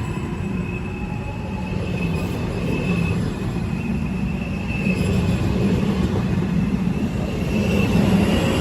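Train rolling on the rails, a steady low rumble from the wheels and cars with a faint high wheel squeal coming and going over it.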